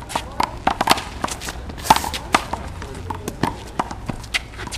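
A one-wall handball rally: the small rubber handball smacks off the concrete wall and court, among quick scuffing sneaker footsteps. The sharp slaps and scuffs come in an irregular, rapid run.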